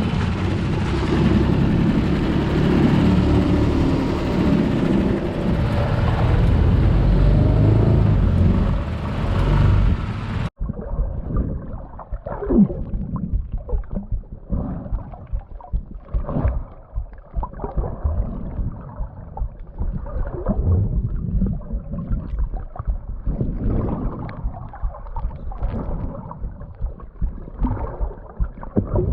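Small boat outboard motor running slowly, with wind noise over it; the motor is faulty and stalls if pushed faster. After a cut about ten seconds in, a muffled recording of water sloshing and gurgling in irregular surges.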